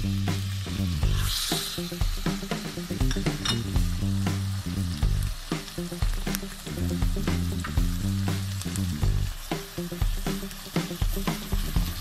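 Minced meat frying in oil in a steel pot, sizzling steadily, with a louder burst of sizzle about a second in as chopped tomatoes go into the hot oil; the mix is stirred with a wooden spoon. Background music with a repeating low bassline plays under it.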